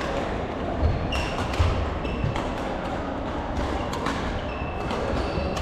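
Badminton play in a sports hall: sharp racket hits on the shuttlecock, short high squeaks of court shoes on the wooden floor, and a couple of heavy footfall thumps about a second in.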